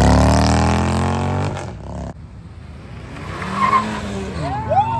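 A touring motorcycle's engine accelerating away, rising in pitch and fading. After a break, a Volkswagen GTI hatchback's engine is heard as the car pulls past, with a short squeal that rises and falls near the end.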